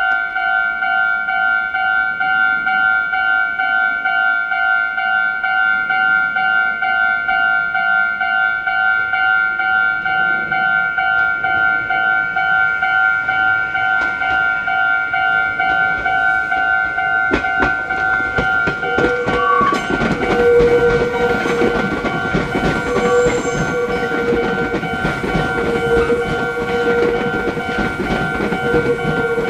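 Meitetsu train running in over the station's pointwork: wheels clicking over rail joints and switches start about halfway through and grow louder, with a squeal that comes and goes. A steady ringing tone sounds throughout.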